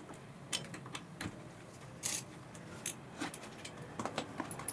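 Scattered light metallic clicks and taps from a gloved hand handling the rear brake drum and its fixings on a VW Up, over a steady low background noise.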